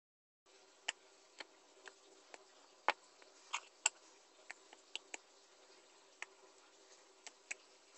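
Fingertips poking into a lump of glitter slime, giving short, sharp clicks and pops at uneven intervals, about a dozen of them, over a faint steady hum.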